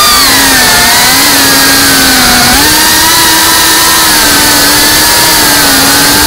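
FPV quadcopter's electric motors and propellers whining, the pitch shifting up and down a little, over a steady hiss.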